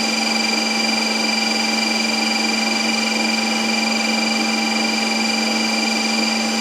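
Electric blender motor running at one steady high speed with a constant whine, blending Dr Pepper soda.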